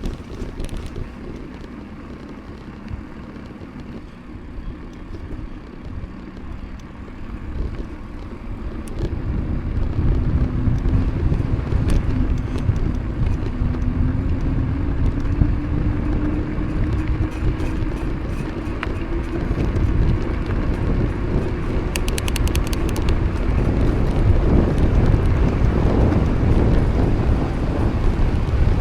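Wind buffeting the microphone of a camera on a moving bicycle, growing louder about a third of the way in as the bike gathers speed, with a faint rising hum and a short burst of fast ticking about two-thirds of the way through.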